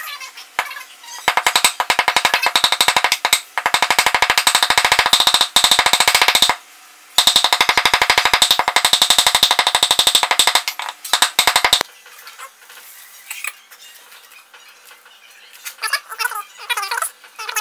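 A cleaver chopping rapidly on a thick wooden chopping board, mincing food with fast, even strokes. The chopping runs in two long bursts with a short break between and stops about twelve seconds in.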